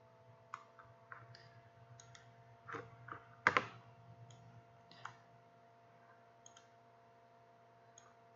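Computer mouse buttons clicking: many short scattered clicks, some in quick pairs, the loudest about three and a half seconds in, over a faint steady hum.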